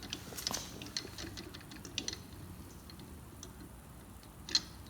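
Scattered small clicks and light metallic ticks from working the belt-tension nut and trolley parts on a garage door opener rail, thickest in the first two seconds, with one sharper click near the end.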